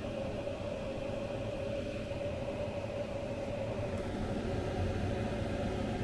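Diesel air heater running, its blower fan spinning smoothly with a steady hum and a constant tone, free of rubbing now that the plastic it caught on has been trimmed back.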